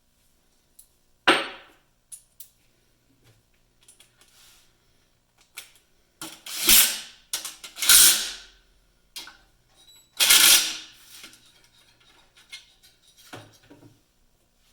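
Metal tools and parts clattering and clanking as they are handled, in a few loud bursts: one early, a cluster in the middle, and one more a couple of seconds later.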